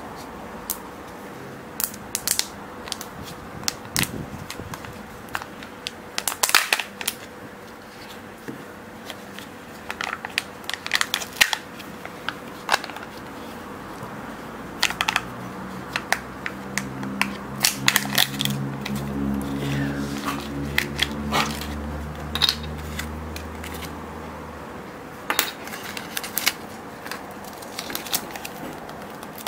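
Plastic and foil packaging crinkling and clicking as fingers peel the foil seal off a Kinder Joy egg's plastic shell and handle a small plastic toy wrapper, in irregular short crackles.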